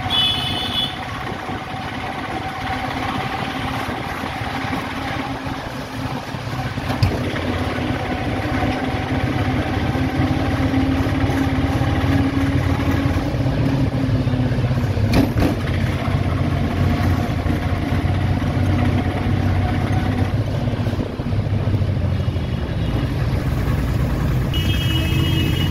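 A vehicle's engine running steadily on the move with road traffic around it, getting a little louder partway through. A brief high beeping sounds at the start and again near the end.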